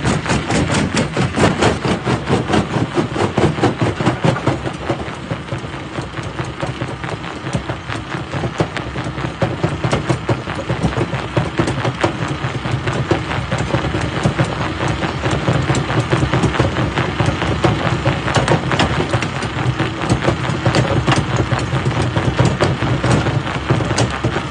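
Jaw crusher running under load: a steady engine drone with dense, irregular cracking and clattering as rock is crushed.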